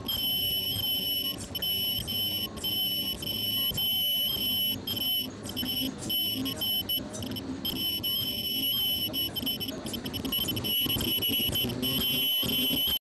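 Face mask making machine running, with a steady high-pitched tone held throughout over a low mechanical rumble. The tone is broken by a few very short dropouts.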